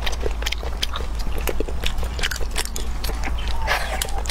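A person chewing and biting on chicken close to the microphone: a run of quick, irregular wet clicks and smacks of the mouth.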